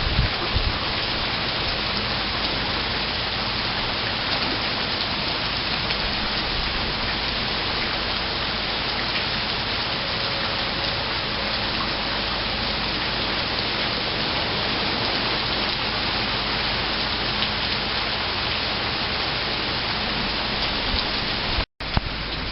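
Steady rain falling, an even hiss of rain on surfaces with no let-up. The sound cuts out for an instant near the end.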